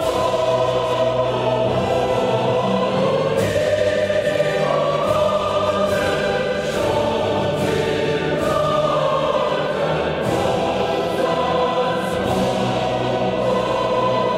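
Choral music: a choir singing slow, held notes that change every second or two.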